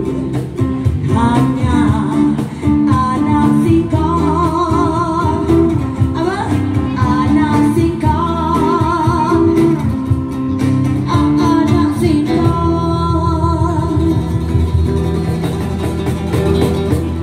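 Live band music: a woman singing a dangdut song into a microphone with a wavering vibrato, backed by amplified acoustic guitar and an electric guitar.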